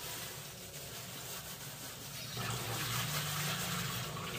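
Tap water running into a stainless-steel sink, growing louder and fuller about two seconds in.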